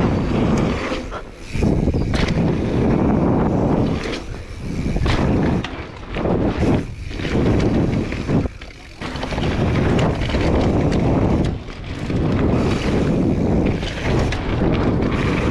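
Mountain bike descending a dusty dirt trail: tyres rumbling over dirt, stones and dry leaves, mixed with wind buffeting the chest-mounted camera's microphone and the odd sharp knock from the bike. The noise comes in surges that ease off briefly every few seconds.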